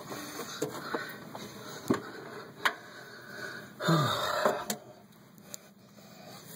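Sharp metal clicks and scraping as pliers work at the cotter pin of a cast-iron fireplace damper handle. There are three distinct clicks, and a short grunt falls in pitch about four seconds in. It goes quieter in the last second or two.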